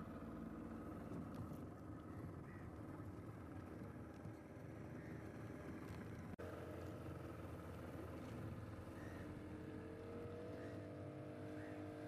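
Outboard motor of a small boat running steadily on open floodwater. There is a sharp break about six seconds in, after which the engine note rises slightly.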